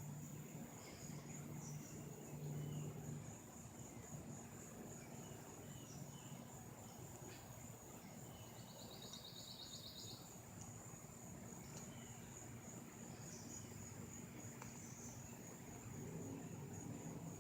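Faint, steady high-pitched insect trilling, with a second, louder pulsed trill for about two seconds near the middle.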